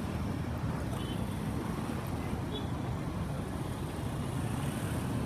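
Steady low rumble of road traffic at a busy city junction.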